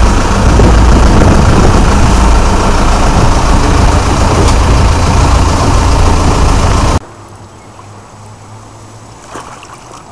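Sport-fishing boat's engine running under way, a loud steady drone with a low hum under wind and water noise. About seven seconds in it cuts off suddenly to a much quieter background.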